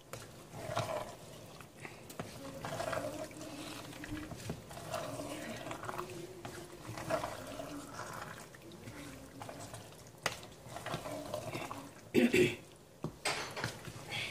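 Wooden spoon stirring thick simmering dinuguan (pork blood stew) in a stainless steel pot: irregular wet squelching and sloshing. A sharp knock about twelve seconds in, the loudest sound, likely the spoon striking the pot.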